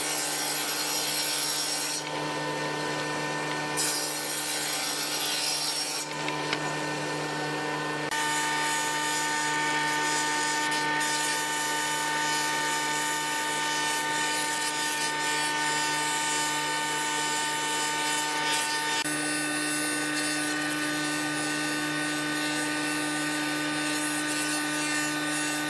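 Woodworking machines cutting hardwood: a saw ripping a board, then a thickness planer feeding and planing narrow strips. Under the noise of the cutting runs a steady motor hum with a high whine, and the sound shifts abruptly several times.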